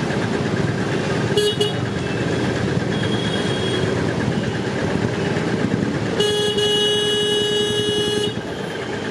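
Evening road traffic: engines running and vehicles passing, with a vehicle horn honking briefly about a second and a half in and then sounding one long steady blast of about two seconds a little after the middle.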